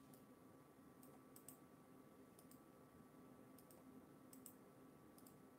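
Near silence with faint clicks from a computer keyboard or mouse, mostly in quick pairs about once a second, over a faint steady hum.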